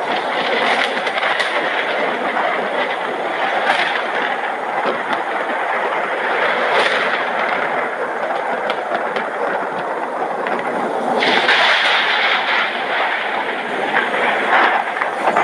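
Heavy rain falling steadily, with scattered sharp drop hits, growing louder about eleven seconds in.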